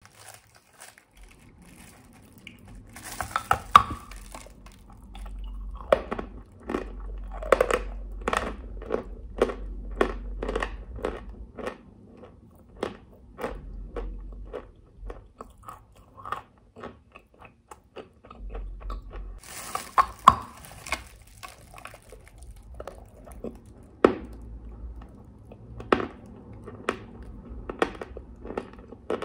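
A chunk of dry white chalk bitten with a loud crunch, then chewed in a run of short, crisp crunches about one or two a second. A second bite comes about twenty seconds in, followed by more chewing crunches.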